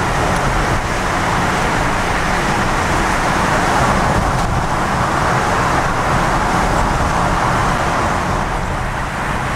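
Steady engine and tyre noise of a car heard from inside its cabin as it drives through a narrow rock tunnel: a low, even rumble with road hiss above it.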